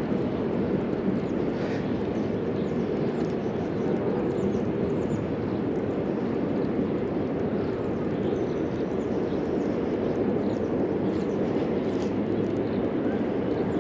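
Steady low rushing outdoor background noise, with faint short high chirps now and then.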